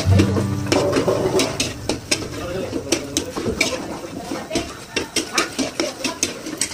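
Metal spatula scraping and clanking against a steel wok in quick, irregular strokes while chopped garlic fries in oil with a sizzle underneath.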